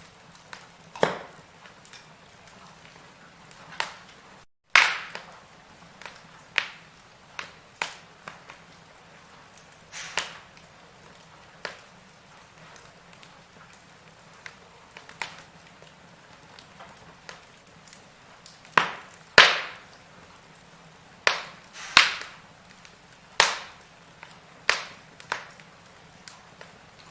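Wood fire in a fireplace crackling, with sharp irregular pops and snaps over a faint steady hiss, the loudest about five seconds in and around twenty seconds in. A split-second dropout to silence comes about four and a half seconds in.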